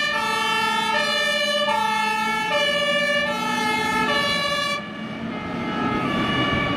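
German fire engine's two-tone siren (Martinshorn) alternating between a high and a low note about every three-quarters of a second. Engine and road noise swell near the end.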